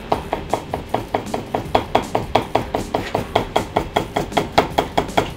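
Chef's knife rapidly julienning ginger on a white plastic cutting board: a steady run of crisp knocks of the blade on the board, about five strokes a second.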